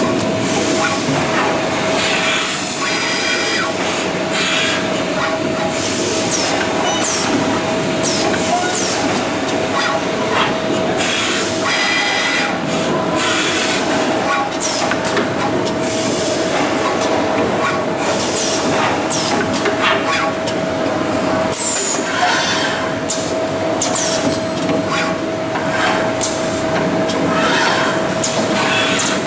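CNC tube bending machine at work: a steady machine hum with a constant tone, many metallic clicks and clanks, and short high squeals, some falling in pitch.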